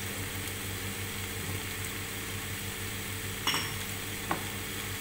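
Chicken pieces sizzling in a frying pan over a gas burner: a steady hiss with a low hum beneath it. Two short clicks come about three and a half and four and a half seconds in.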